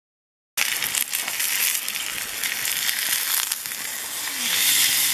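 Steak sizzling in a hot forged-iron Turk frying pan over a wood fire, with scattered spitting crackles. It starts abruptly about half a second in and grows louder near the end.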